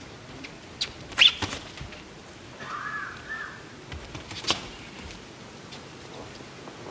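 Sounds of a boxing bout in the ring: a few sharp smacks of gloves landing, the loudest a little over a second in, and short high squeaks, most clearly one around three seconds in, typical of boxing shoes on the canvas.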